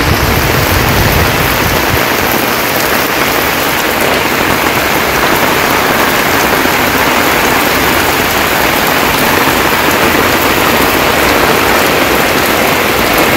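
Heavy rain pouring down, a loud, steady hiss of drops splashing on wet ground and standing water.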